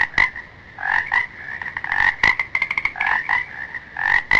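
Frog croaking, a steady series of repeated calls, with a quick rattle of clicks a little after two seconds in.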